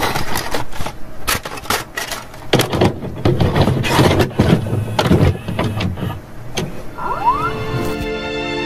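VCR tape-deck mechanism: an irregular run of clicks, clunks and whirring as a cassette loads and starts to play, with a short rising whine about seven seconds in. Music comes in near the end.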